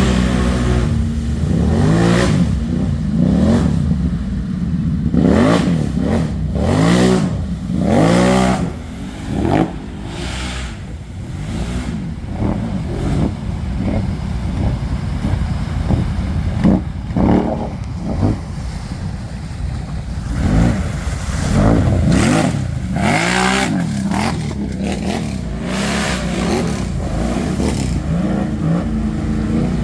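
ATV engine revved hard and let off again and again, its pitch sweeping up and down many times.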